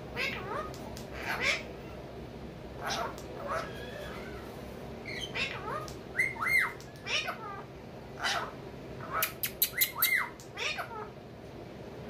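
Pet parakeets, Alexandrine and blue Indian ringneck, calling in short squawks and chirps with brief gaps between. Twice there are quick rising-and-falling notes, and the loudest part is a run of sharp clicks and calls about nine to ten seconds in.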